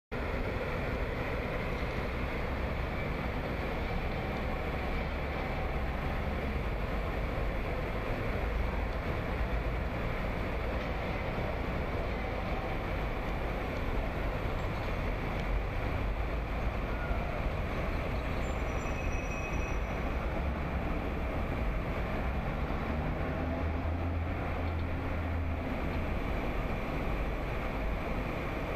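Street traffic noise: a steady mix of vehicle engines and tyres with a low rumble, and a deeper engine hum that swells for a few seconds about two-thirds of the way through.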